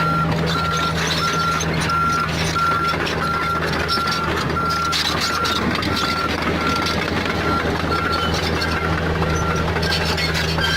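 Komatsu PC45 mini excavator's diesel engine running steadily under work, with a backup alarm giving short, evenly spaced beeps throughout and scattered clanking and scraping of machinery.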